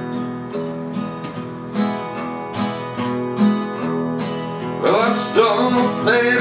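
Two acoustic guitars strummed together in a steady country rhythm. A man's singing voice comes in about five seconds in.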